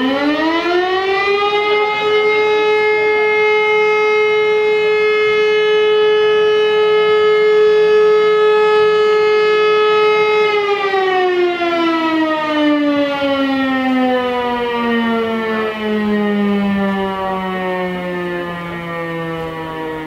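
Civil defence siren sounding the fire brigade alarm. It winds up to a steady wail over about two seconds, holds it, and about halfway through begins a long, slow wind-down in pitch.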